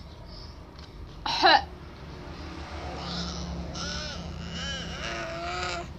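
A woman's single loud, harsh cough about a second in, then a baby babbling with rising and falling coos over the last few seconds.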